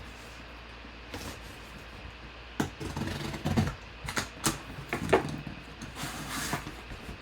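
A mini-helmet box and its packaging being handled and opened, heard as a run of scrapes, rustles and knocks that come thickest in the middle.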